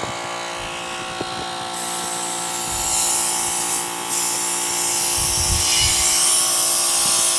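Compressed air hissing loudly from a blow nozzle, coming in about two seconds in and growing stronger after about four, as the lawn tractor's gas tank is blown out to clear the water-contaminated fuel. A steady motor hum runs underneath.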